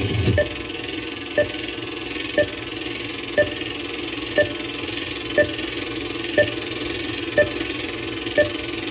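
Old-film countdown leader sound effect played over loudspeakers: a short beep every second over a steady film-projector whir and crackle.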